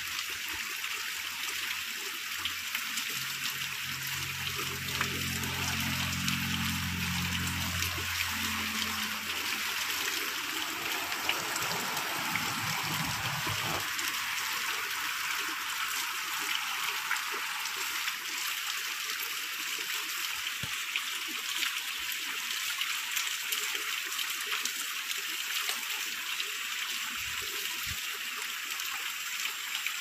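Shallow water running and trickling steadily through a narrow stone-walled channel. A low hum rises in about two seconds in, holds for several seconds and fades out before the middle.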